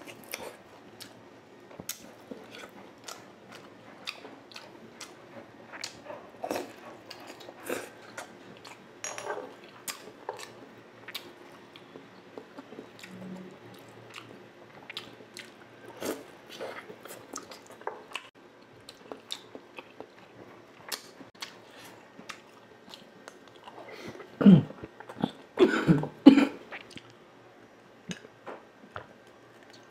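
Close-miked chewing of battered deep-fried eggs (kwek-kwek and tokneneng), with many short mouth clicks, then a cluster of louder gulps near the end as water is drunk.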